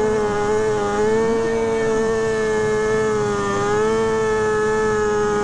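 Motorcycle engine held at steady high revs, a constant high-pitched drone that wavers slightly, with fainter revving underneath.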